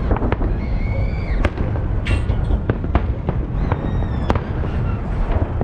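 Holiday fireworks salute: shells bursting in a rapid, irregular series of sharp bangs over a constant low rumble.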